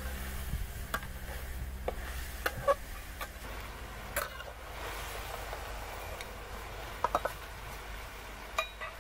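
Metal utensil clinking and scraping against cookware while food sizzles, with scattered sharp knocks, a few louder ones around three seconds in and near seven seconds.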